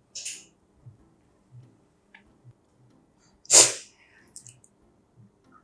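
A person sneezing once, loud and short, about three and a half seconds in, after a brief hiss of breath near the start. Soft, faint low knocks come and go throughout.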